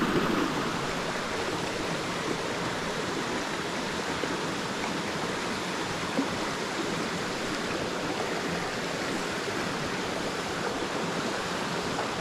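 Small rocky creek rushing steadily over stones and little cascades.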